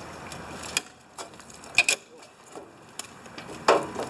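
A handful of knocks and scuffs as a person climbs onto a compact tractor and settles onto its newly bolted-on seat, with two louder clunks, one about two seconds in and one near the end.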